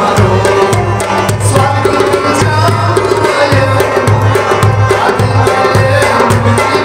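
Harmonium playing held, reedy chords over a rhythm of deep hand-drum strokes, with a man singing a Kashmiri kalam (Sufi devotional song).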